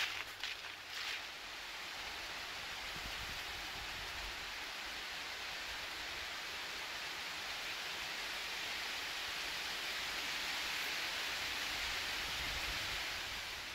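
A few footsteps crunching through dry fallen leaves at the start, then a steady rain-like hiss of wind rustling the dry autumn leaves in the trees. The hiss swells a little near the end, then eases off.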